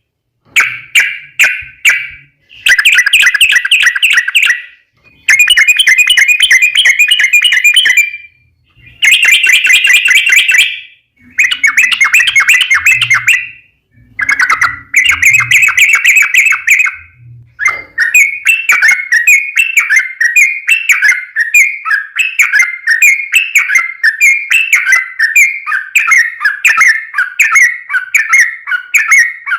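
A yellow-vented bulbul (trucukan) singing long, rapid chattering phrases, the bird-keepers' 'ropel panjang', separated by short pauses. A little past halfway it breaks into an unbroken run of quick repeated notes.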